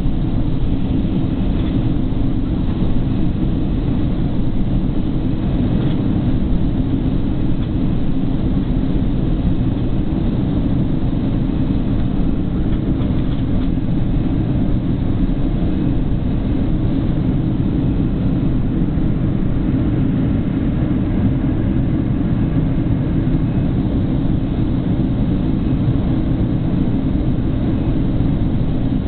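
Steady cabin roar of a Boeing 767-300ER airliner in flight on approach, engine and airflow noise heard from a window seat over the wing, mostly a low rumble with no changes.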